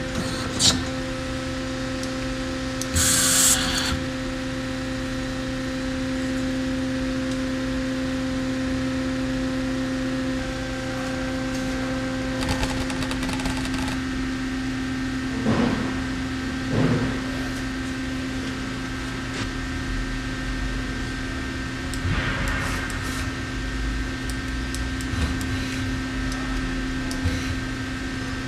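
Miyano LM-11 CNC lathe running: a steady mechanical hum with several whining tones, one of which drops out and another comes in about halfway through. A short burst of hiss comes about three seconds in, and a few knocks sound around the middle.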